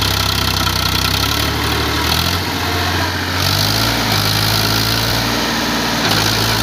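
Powertrac Euro 50 tractor's diesel engine running steadily, its note shifting twice in the first few seconds as the engine speed changes.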